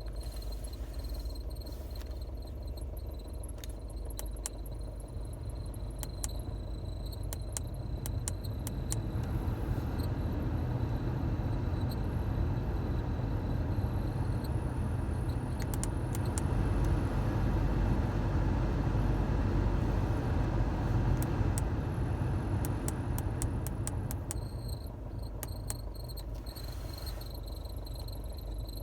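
Audi A3 heater blower whistling: a steady high-pitched whistle over a rush of air, with scattered light clicks. In the middle the air rush grows louder and fuller and the whistle fades, then the rush drops back and the whistle returns near the end.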